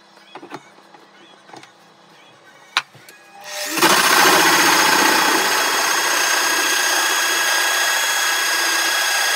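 A few light knocks and clicks as an oak blank is handled, then about three and a half seconds in a pillar drill fitted with a hole saw starts up. It runs loud and steady with a high whine.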